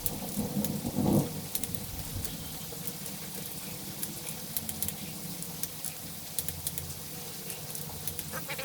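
Heavy rain coming down, a steady hiss dotted with many sharp drip ticks, with a brief low rumble about a second in.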